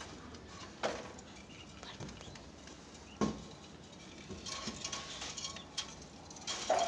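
Scattered knocks and patter from a clay pot nest being handled and fitted back onto a lovebird cage, with a sharp knock about a second in and another about three seconds in. Short lovebird chirps come through, busier in the second half.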